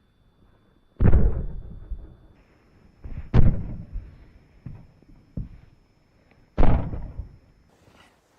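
Hammer blows on a Lada Riva's steel body panel covered in thick vibration-damping padding: three heavy thuds a couple of seconds apart, each dying away quickly, with a few lighter knocks between them.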